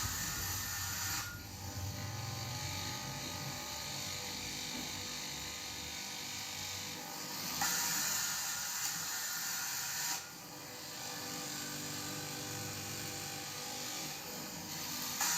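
Electric fabric cutting machine running, its blade cutting through cloth: a steady motor whir and hiss that gets louder and brighter from about 7.5 to 10 seconds in and again near the end.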